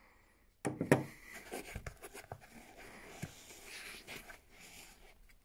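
Handling a foam-lined telescope carry case: a sharp knock and clatter just under a second in, then foam rubbing and scraping against the case with small clicks as the foam insert is lifted out.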